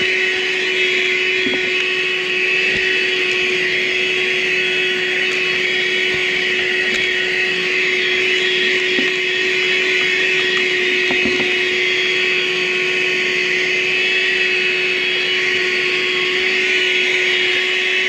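Armor All 12-volt wet/dry car vacuum running steadily at one pitch as its nozzle is drawn over the car's floor carpet.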